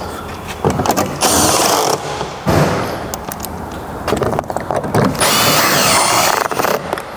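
A cordless power tool running in two short bursts, the second longer, with a high whine and mechanical clatter between the bursts: bolts being driven while a car door is remounted on its hinges.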